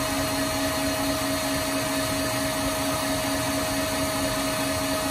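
KitchenAid tilt-head stand mixer running at top speed, its wire whisk whipping egg whites into meringue in a stainless steel bowl: a steady motor whir with an even hum.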